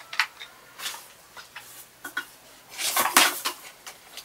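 Small hard objects clicking and knocking as craft tools and materials are handled on a work table, with a cluster of clatter about three seconds in.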